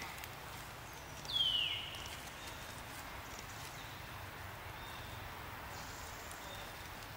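A single short, high-pitched animal call falling in pitch about a second and a half in, with a fainter falling call at the very start, over a steady outdoor hiss.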